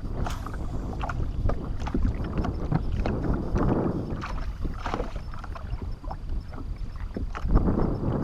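Wind buffeting the microphone and water lapping against a small fishing boat's hull, with scattered light clicks and knocks.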